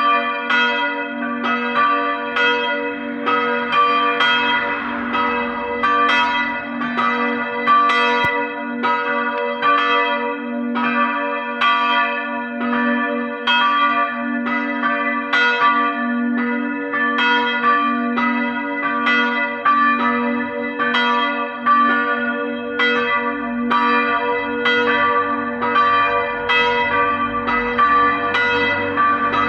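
Several church bells ringing together in a full peal, their strikes overlapping at about one and a half a second over a steady hum: the bells ringing in the New Year.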